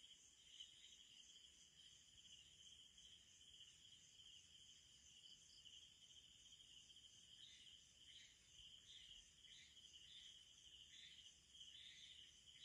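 Faint, steady high-pitched trilling of night insects such as crickets; from about seven seconds in, short irregular chirps join the trill.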